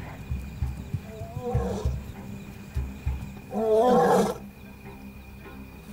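Lioness roaring: a shorter call about one and a half seconds in, then a longer, louder one about four seconds in. It is a long-range call to regroup the pride in the dark.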